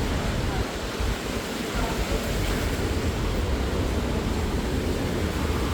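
Steady rain falling on a city street, an even hiss with a low rumble underneath.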